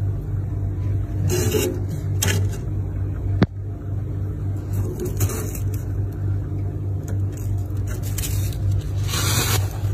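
Freezer running with a steady low hum, a few brief rustling scrapes near the frost, and a single sharp click about three and a half seconds in.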